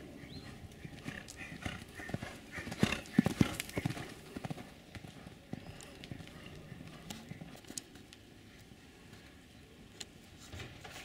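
Horse's hooves striking the sand footing of a riding arena as it is ridden, a run of irregular hoofbeats that is loudest around three seconds in and fainter afterwards.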